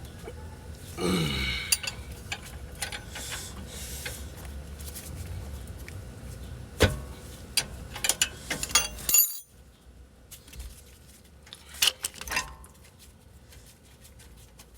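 Metal tools clinking and knocking on a brake caliper as its 18 mm caliper bolts are worked off: scattered sharp clicks and clanks with no steady rhythm. About a second in there is a short falling grunt-like sound.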